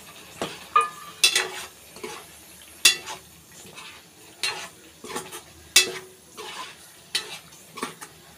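Metal ladle stirring a thick egg gravy in a steel pan, with irregular clinks and scrapes of metal on metal.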